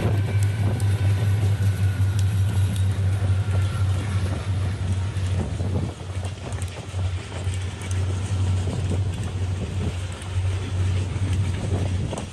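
Strong wind buffeting the microphone as a loud, steady low rumble, with scattered light ticks over it.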